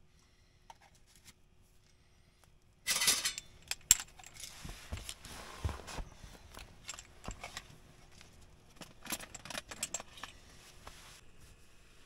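Small objects being handled: a sudden burst of rustling about three seconds in, then irregular clicks and light clinks that die down near the end.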